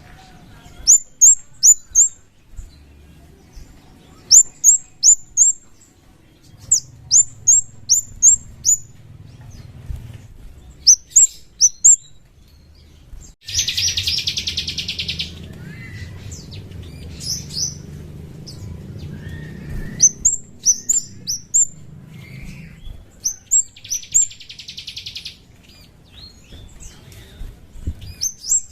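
Scarlet-headed flowerpecker (kemade) calling: repeated groups of four or five sharp, very high, downward-slurred chirps. About halfway through, and again near the end, comes a lower, buzzy rattling trill.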